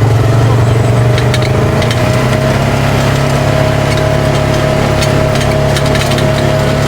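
Polaris RZR 570 side-by-side's single-cylinder engine running at a steady pitch as it drives along a dirt track, with scattered light clicks from the ground under the tyres.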